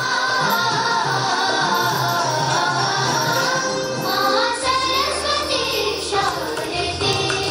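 A song with voices singing over instrumental backing, the music the girls are dancing to.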